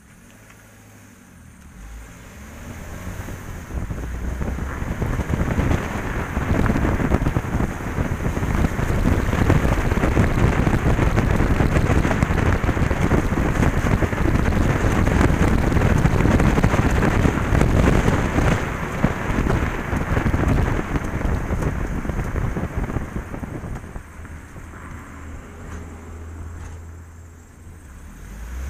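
Wind buffeting an outside-mounted camera's microphone, with tyre roar from a Vauxhall Corsa driving on a wet road. It builds as the car gathers speed and eases near the end as it slows, when the engine's low hum comes through.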